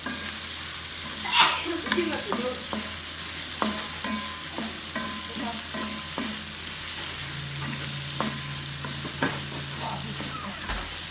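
Food frying and sizzling in a pan while a spatula stirs it, scraping and tapping the pan irregularly, about once a second, with the loudest knock near the start.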